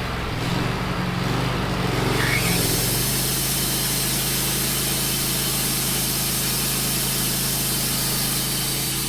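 Wood-Mizer LT15 portable bandsaw mill running steadily. About two and a half seconds in, a steady hiss joins it as the band blade cuts into the maple log.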